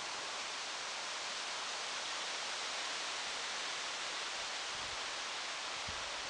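Steady, even hiss with a faint rustling quality, with two soft low thuds near the end.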